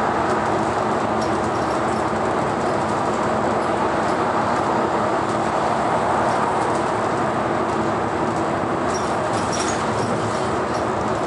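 Steady cabin noise of a city bus cruising on an expressway: engine hum and tyre and road noise, with a few light clicks and rattles near the end.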